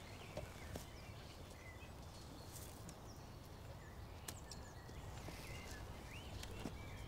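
Quiet woodland ambience: birds chirping now and then in short, bending calls over a low steady rumble, with a few faint ticks and rustles.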